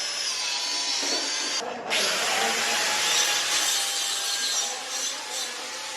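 A power tool working on material: a steady rasping hiss with a faint whine, broken briefly just before two seconds in.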